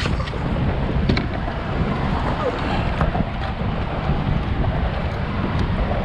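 Wind buffeting the microphone outdoors on the water, a steady low rumble, with a few faint clicks or taps scattered through it.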